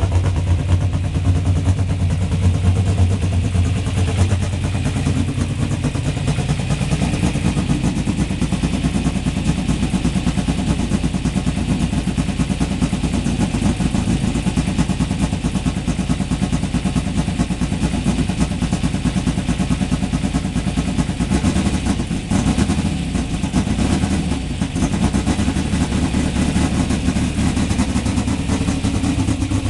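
Turbocharged air-cooled VW flat-four racing engine running on methanol, on its first start-up under new Fueltech FT600 engine management. It runs steadily with a rapid stream of exhaust pulses, and its level dips briefly a couple of times past the middle.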